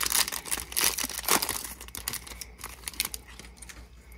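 Foil wrapper of a Topps baseball card pack crinkling and tearing as the stack of cards is pulled out, dying down after about two seconds to a few light clicks of the cards being handled.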